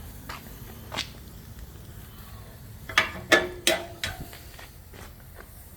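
A few sharp clicks and knocks: one about a second in, then four in quick succession about three seconds in, the last ones ringing briefly.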